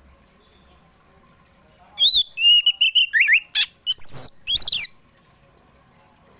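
Oriental magpie-robin (kacer poci) singing. About two seconds in, it gives a loud burst of clear whistled notes lasting about three seconds: a run of quick repeated notes, a couple of sharp clicks, then sliding whistles that rise and fall.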